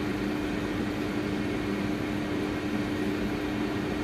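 Air fryer running, its fan and heater giving a steady hum with one constant tone.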